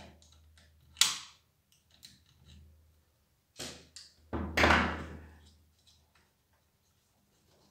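Hand tools and small metal parts being handled on a pressure washer's brass pump head: a sharp click about a second in, then a knock and a short clatter a few seconds later.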